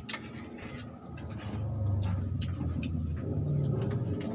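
Spoons and fingers clicking on plates during a meal, with a low rumble that rises about a second in and stays.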